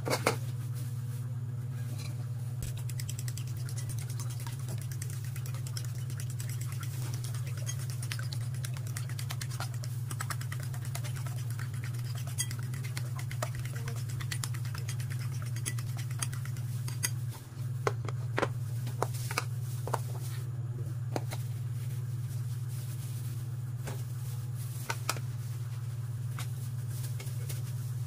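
A fork beating raw eggs in a bowl: many quick, light clicks and taps of the fork against the bowl, over a steady low hum.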